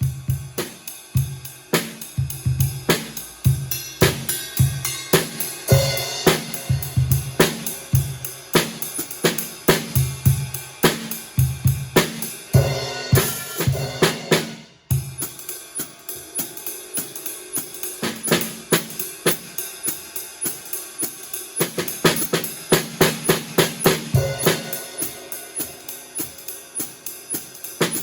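Drum set played with wooden sticks in a steady groove: a pedal-beaten cajon serving as the bass drum, a dampened snare, and hi-hat and cymbals. The playing breaks off for a moment about 15 seconds in, then picks up again.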